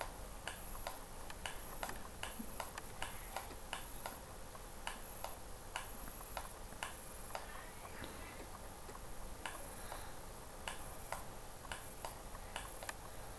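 Faint, irregular clicks of a computer mouse, a couple each second, over low room hiss.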